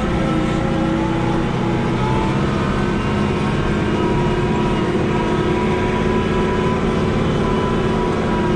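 Engine of the vehicle being driven, running steadily at an even speed with a constant hum and low rumble.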